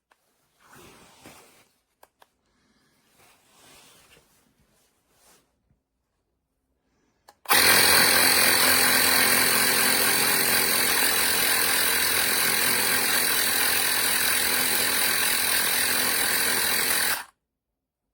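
CYCPLUS 150 PSI cordless mini air compressor running loud and steady for about ten seconds, starting about seven seconds in and cutting off abruptly. Before it, faint rustling as the unit is handled.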